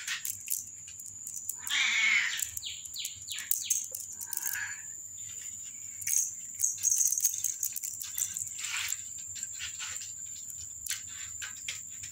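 Cats batting and biting at a feather wand toy: scattered clicks and taps of claws and paws on a mirror and tile floor, with a few short cat cries.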